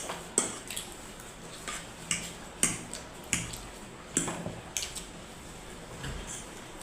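Cutlery clinking and scraping on plates during fast eating, about ten short, sharp clicks at irregular intervals.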